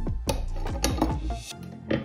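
Background music: quick plucked notes over a steady bass line, the bass dropping out near the end.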